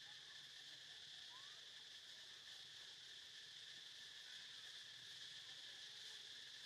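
Faint, steady chorus of insects, a high even drone.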